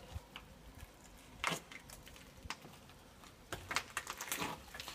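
Irregular scuffs and crunches of people moving through a narrow brick-lined tunnel, the sharpest one about a second and a half in and a cluster of them near the end.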